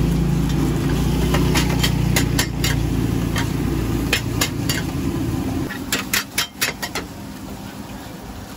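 A knife blade tapping and scraping against the inside of a steel cake tray while slabs of cake are cut: a run of short, sharp metallic clicks, loudest in a quick cluster about six seconds in. Under it is a steady low hum that drops away about two-thirds of the way through.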